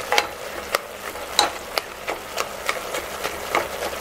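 Spatula stirring minced meat in an open pressure cooker, scraping and clicking against the pot at an irregular pace, over a steady hiss of the simmering cooking liquid as its water is boiled off.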